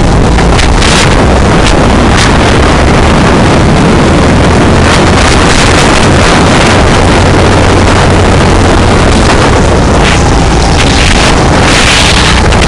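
Go-kart engine running hard and steady at racing speed, heard loud and close from on board, with wind rushing over the microphone.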